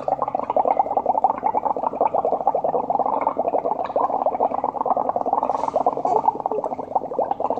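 Air blown steadily through a drinking straw into a cup of watery paint mixed with washing-up liquid: a fast, continuous bubbling gurgle as soapy foam builds up in the cup.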